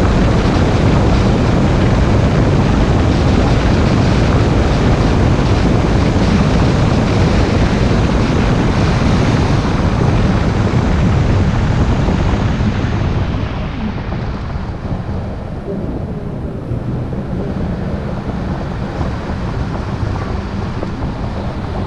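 A car driving at speed: steady road and tyre noise with wind rush. About two-thirds of the way through it eases off and grows quieter and duller as the car slows.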